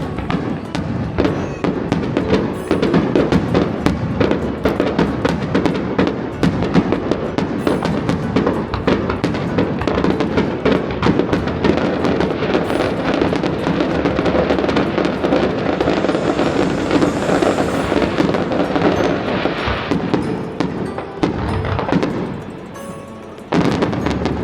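Aerial fireworks in a rapid, dense barrage of bangs and crackling, thinning out near the end before one last short burst.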